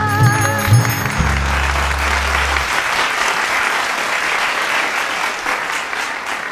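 A live song ends: its last held note, with vibrato, stops about a second in, and a low sustained chord dies away a couple of seconds later. Audience applause rises over it and carries on, thinning toward the end.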